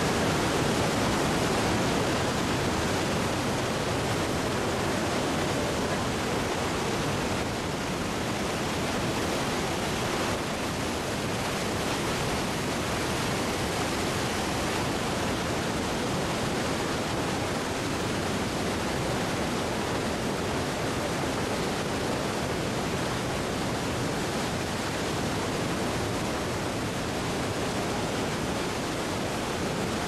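Niagara's American Falls: heavy water plunging over the brink, a steady, loud rushing noise with no break.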